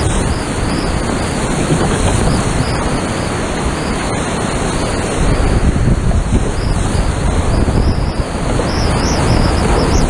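Whitewater rapids of a high-running creek rushing loudly all around a kayak, heard from right on the boat. It gets louder for a couple of seconds around the middle as the boat drops through the waves.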